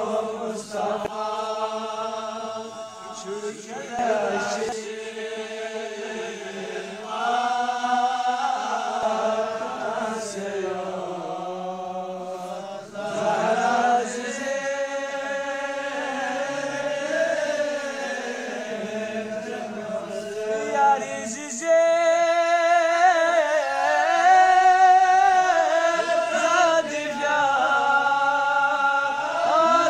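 A man's voice chanting a Balti qasida, a devotional poem, in long held notes with wavering, ornamented pitch. The chanting grows louder and higher from about two-thirds of the way in.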